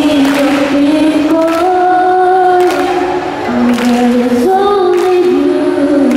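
A young woman singing into a handheld microphone, holding long notes that step up and down in pitch.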